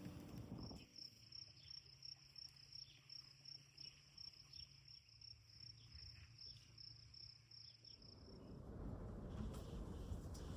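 A cricket chirping faintly: a steady run of quick, high pulses, about four a second, that stops shortly before the end as a low rush of noise rises.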